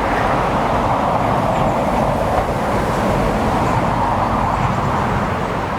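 Main-road traffic going by: a steady rush of vehicle and tyre noise that eases off a little near the end.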